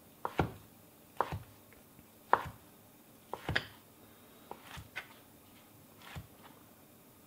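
A sharp knife hand-chopping raw beef tenderloin into a coarse dice for steak tartare. Separate knocks come about once a second, some in quick pairs.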